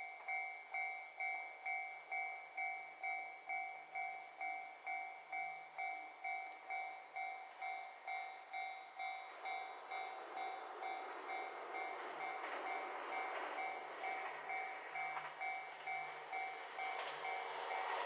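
Japanese level-crossing alarm ringing, an electronic two-tone ding repeated evenly a little under twice a second. Over the second half an approaching train's rumble rises steadily until it almost covers the bell.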